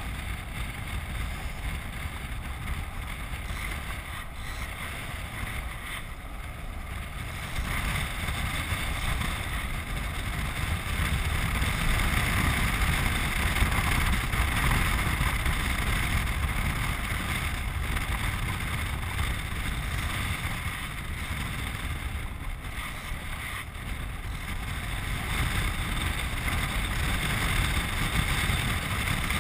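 Wind rushing over a frame-mounted action camera and a low rumble as a land yacht sails across a hard dry lake bed. The noise grows louder about eight seconds in and eases slightly later on.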